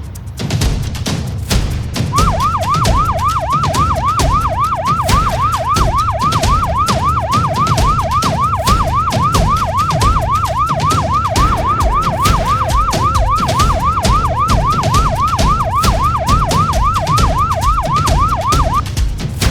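Electronic alarm siren sounding in a fast rising-and-falling yelp, about three sweeps a second, starting about two seconds in and stopping shortly before the end, over background music with a steady beat.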